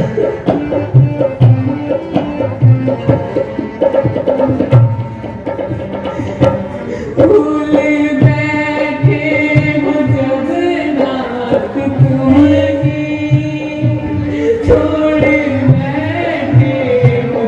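Stage accompaniment music: a hand drum beating a steady rhythm, joined about seven seconds in by a held, stepwise melodic line.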